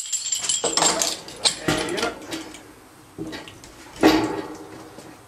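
Metallic clinks and rattles of equipment being handled, with a louder knock about four seconds in.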